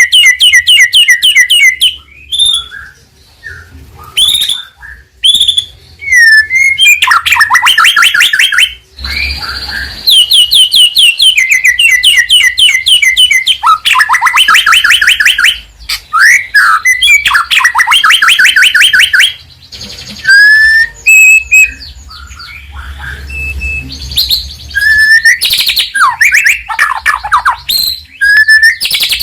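White-rumped shama (murai batu) in full, loud song: fast runs of repeated notes a second or two long, alternating with sliding whistles and short chattering calls, in an unbroken stream.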